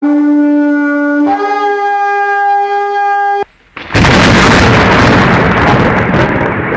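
A horn sounds two long held notes, the second higher than the first. After a short pause comes a loud rushing blast of noise that lasts about three seconds and cuts off suddenly.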